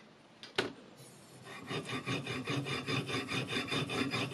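Whetstone on a guided-angle sharpening system's rod, rubbed in quick back-and-forth strokes along the edge of a Chinese chef's knife: a steady rapid rasping grind that starts about a second and a half in. Before it there are two light clicks.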